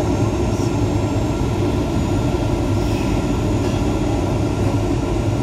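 Cabin noise inside a Boeing 737-800 descending on approach: the steady, even sound of its CFM56-7B engines and the rushing air along the fuselage, with a few faint steady tones through it.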